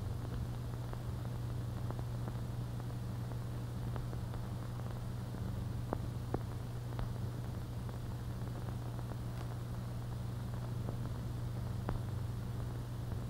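Steady low hum and hiss of an old film soundtrack, with scattered faint clicks and crackles.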